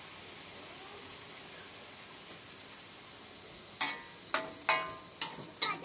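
Water poured into a hot wok of stir-fried cassava leaves, hissing and sizzling steadily. Near the end come several sharp clinks with a short ring.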